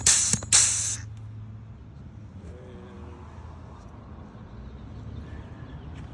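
Hand-lever grease gun pumped at a grease fitting, giving two short hissing spurts in the first second as it spits air with the grease, then stopping. A steady low hum carries on underneath.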